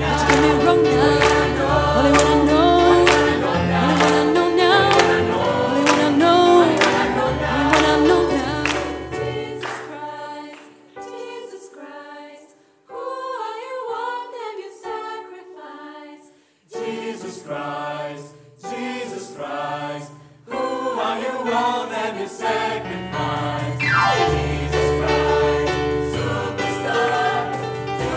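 Mixed choir singing a rock-gospel number over a bass line and a cajón beat. About ten seconds in the beat and bass drop out and the voices sing short, separated chords with gaps between them. The full sound comes back around twenty seconds in.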